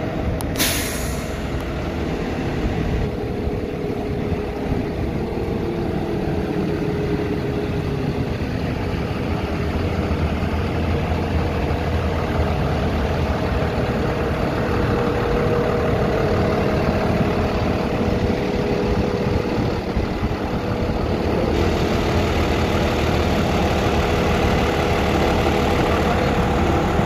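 A parked flatbed tow truck's engine idling steadily.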